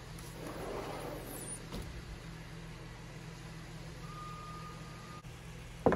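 Sliding glass patio door rolling along its track as it is pushed open, with a click, over a steady low hum; a short thin steady tone about four seconds in, then a sharp knock just before the end.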